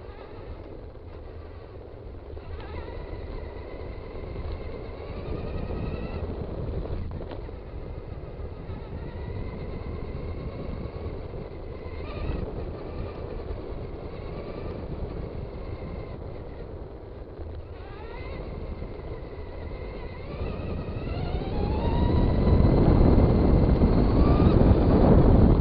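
Electric motor of a Traxxas Stampede 2WD RC car whining as it drives, with tyre and road rumble. The whine rises in pitch several times as it speeds up, and it gets much louder over the last few seconds under hard acceleration.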